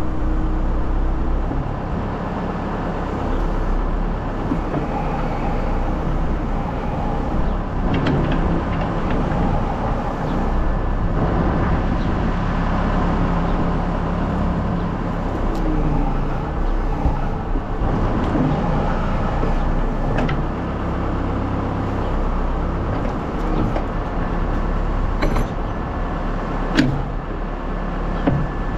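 Backhoe engine running under hydraulic load, its pitch rising and falling as the boom and bucket are worked to push a tractor tire's bead off the rim. There are a few sharp knocks along the way.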